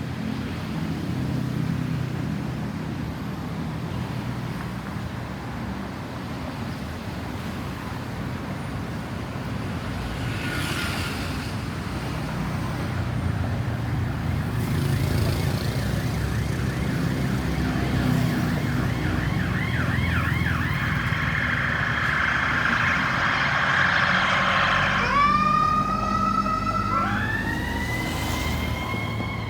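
Ambulance's electronic siren coming through road traffic. A fast warbling yelp grows louder over the second half, then about 25 seconds in switches to a slow wail that rises twice and starts falling near the end. Low traffic rumble runs underneath.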